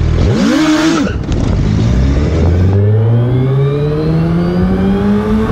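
Suzuki Hayabusa's inline-four engine at full throttle. It gives a quick rev up and back down, then climbs steadily in pitch as the bike accelerates hard in one gear, with traction and anti-wheelie lift control switched on.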